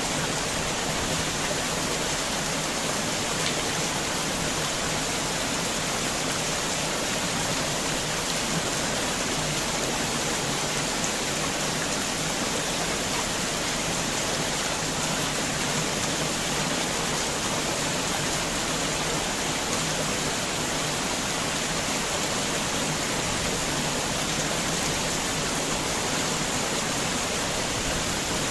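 Heavy rain falling in a steady, even hiss, with no thunder or separate drips standing out.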